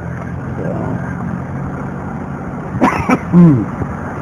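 Steady engine and road drone inside a moving car's cabin. About three seconds in comes a brief loud vocal sound, a short burst that falls in pitch.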